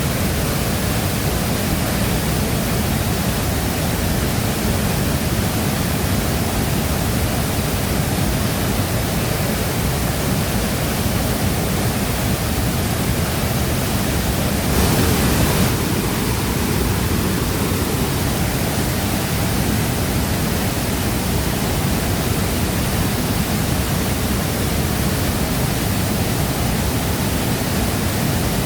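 A large waterfall thundering steadily: dense, even rushing of falling water with no let-up, briefly louder for about a second around halfway through.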